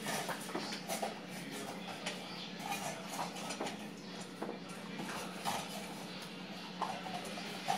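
Two corgis moving about and licking on a tiled kitchen floor: scattered small clicks and scuffs, over a steady low hum.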